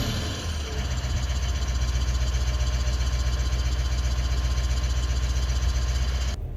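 Toyota Land Cruiser 200's 1VD-FTV V8 turbodiesel idling steadily with a rhythmic knock, just after a rev dies away. The owner traces the knock to the number 7 injector.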